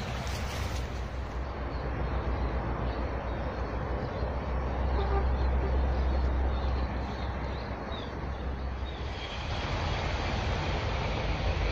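Steady low rumble with an even hiss of outdoor noise, swelling a little about four seconds in and again near the end.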